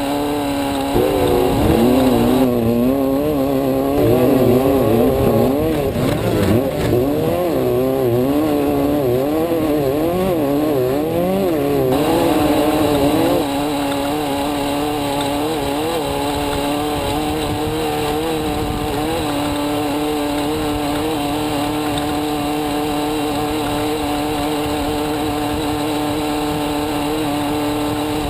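Off-road race vehicle's engine heard from inside the car, its revs rising and falling rapidly for the first dozen or so seconds, then holding a steady pitch.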